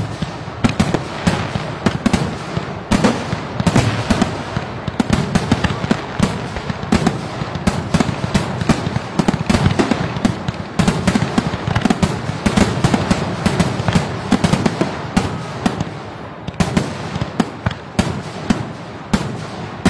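Fireworks display: a dense, continuous barrage of bangs and crackles, several a second, with no let-up.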